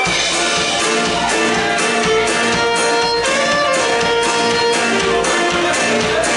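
Live band playing an instrumental passage on acoustic guitar, fiddle and drums, with the full band coming in right at the start.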